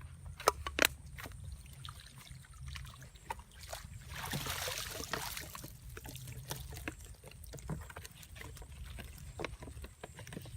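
Water splashing and sloshing, loudest for about a second and a half some four seconds in, among scattered small knocks and clicks. Two sharp knocks come just after the start.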